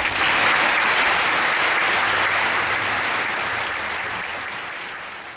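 Audience applauding, starting suddenly all at once and slowly dying away.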